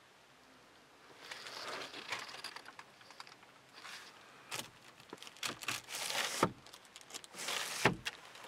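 Sunroof shade, still in its protective plastic wrap, handled by hand: the plastic crinkles and rustles from about a second in, then several sharp clicks and knocks follow as the shade is moved.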